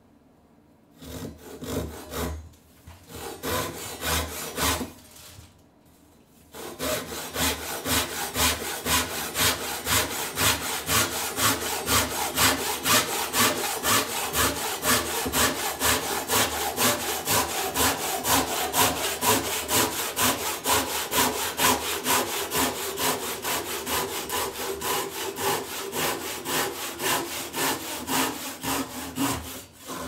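Handsaw cutting across a wooden beam: a few separate short strokes to start the cut, a short pause, then a steady run of quick back-and-forth strokes, about two to three a second.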